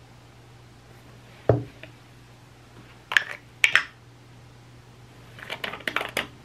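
Small cosmetic containers being handled: a dull knock, then two sharp clicks, then a quick run of small clicks and scrapes as the lid of a small glass jar is twisted.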